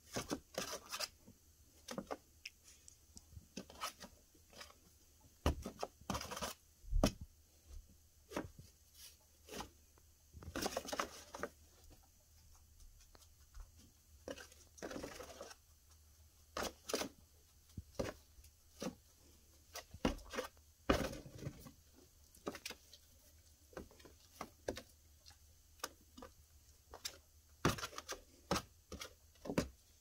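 A cockatiel pecking and scratching inside a brown paper grocery bag: irregular sharp taps and clicks of beak and claws on the paper, with a few longer paper rustles and crinkles along the way.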